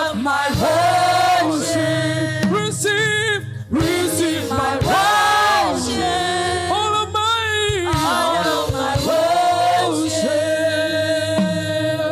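Gospel singing: several voices sing held, wavering notes in harmony over a low, steady accompaniment.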